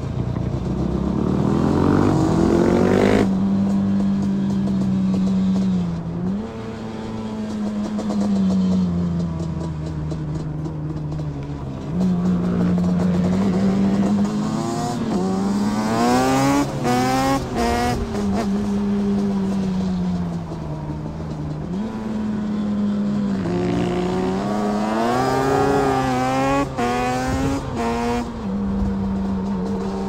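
Motorcycle engines ridden hard on the road: one engine revs up and drops sharply with a gear change about three seconds in, then holds a steady pitch that dips and climbs with the throttle. Around the middle and again near the end, other engines rev up and down over it.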